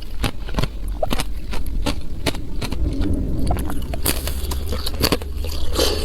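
Thin ice being bitten and chewed close to the microphone: irregular sharp cracks and crunches over a low rumble.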